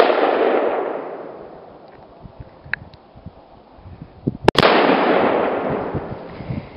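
A rifle shot, its echo rolling away at the start, that misses and throws up snow beside the target. About four and a half seconds in, a second rifle shot and the half-pound Tannerite exploding target detonating almost together: a sharp double crack, then a long rumbling echo that dies away over about two seconds.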